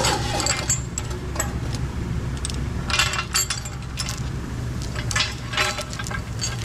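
Steel hoist chain clinking and rattling as it is handled and hooked to a bulldozer final drive carrier, in short clusters at the start, about three seconds in and again around five and a half seconds, over a steady low shop hum.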